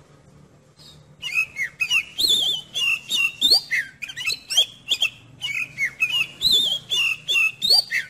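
Oriental magpie-robin (kacer) singing: a rapid, varied run of sliding whistled notes that starts about a second in and goes on without a break.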